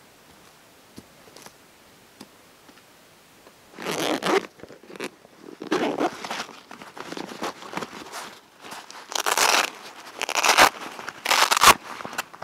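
Backpack pocket zipper being pulled open and the pack's fabric rustling as a hand digs into the pocket, in a series of short scraping bursts starting about four seconds in, the loudest near the end.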